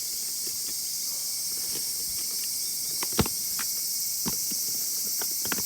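Steady high insect chorus. A few sharp clicks and knocks of something being handled sound over it, the loudest about three seconds in.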